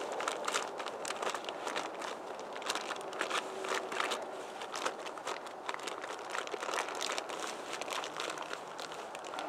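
Gloved hands handling something that crinkles and crackles: irregular, closely spaced sharp crackles throughout, over a steady background hiss.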